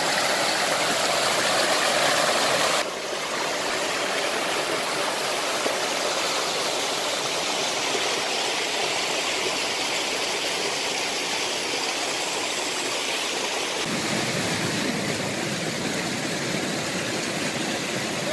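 Steady rushing noise like running water, shifting abruptly about three seconds in, with a deeper rumble joining near the end.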